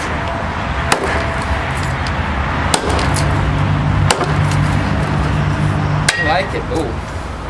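A large chopping knife striking into a log four times, one sharp chop every one and a half to two seconds. The last blow leaves the blade ringing briefly.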